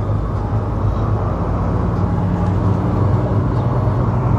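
Steady low drone of a car driving, heard from inside the cabin: engine and road noise.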